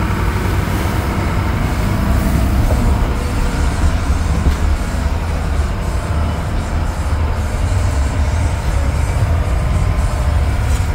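Strong wind, blowing about 35 to 40 mph, and the boat's engine making a loud, steady rumble aboard a shrimp trawler in rough seas, with wind buffeting the microphone.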